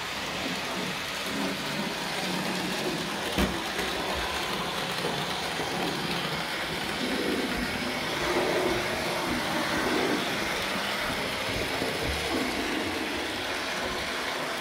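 N scale model steam locomotive running along sectional track on 9-volt battery power: a steady whir of its small electric motor and the running noise of its wheels on the rails. A single sharp click about three and a half seconds in.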